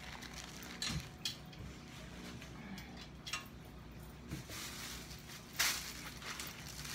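Rustling and light clicks of small craft items and a clear plastic bag being handled on a table, with one louder crinkle of the bag a little over five seconds in.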